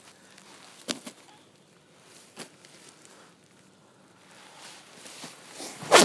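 Rustling and handling noise: a few soft scattered clicks, then a rustle that grows louder toward the end and finishes in one sharp knock.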